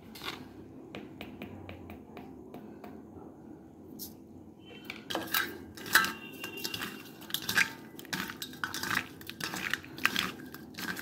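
Raw fish pieces being mixed with turmeric by hand in a stainless-steel bowl: fish and fingers knock and scrape against the metal in repeated clicks, with the bowl ringing faintly. After a quieter stretch of faint clicks, it gets busier about five seconds in.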